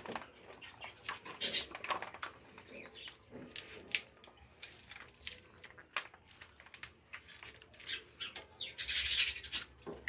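Plastic spaghetti sauce pouch crinkling and crackling in the hands as the sauce is squeezed out into the pan, in irregular clicks. About nine seconds in comes a louder hissing, scraping stretch as a wooden spoon starts stirring the sauce in the pan.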